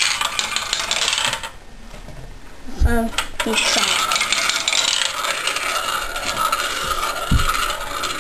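Two glass marbles rolling on a plastic marble run: clattering down the track, a sharp knock about three seconds in, then a steady rolling whirr as they circle round a plastic bowl, with another knock near the end.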